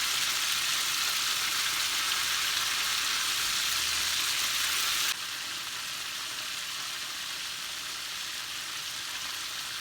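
Chicken drumsticks sizzling steadily in hot frying oil on a low heat, cooking through on the inside. About five seconds in, the sizzle suddenly becomes quieter and then holds steady.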